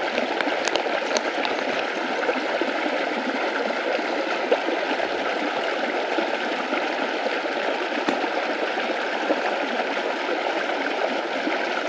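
Creek water flowing steadily, a constant even hiss of running water.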